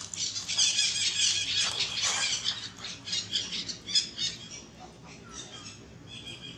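Short, high-pitched animal squeaks and chirps in quick succession, dense through the first four seconds and sparser after that.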